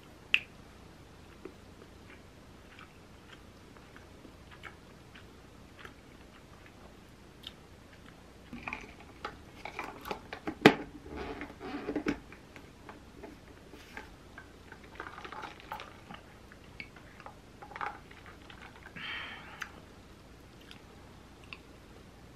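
Close-up eating of a peeled soft-boiled egg: scattered small clicks and handling taps with bites and chewing, busiest in the middle, with one sharp click about ten seconds in.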